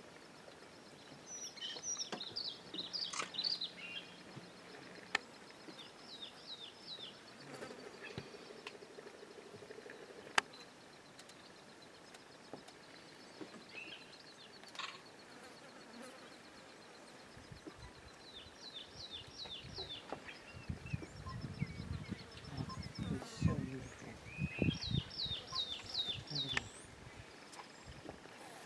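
Bush ambience: birds calling in short runs of quick, falling whistled notes, four times, over a faint steady insect buzz. Muffled low thumps and rumbling come in during the second half.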